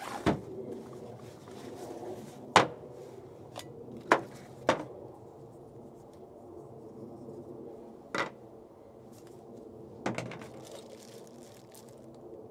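Six sharp knocks and clatters, spaced a second to a few seconds apart, over a faint steady low hum.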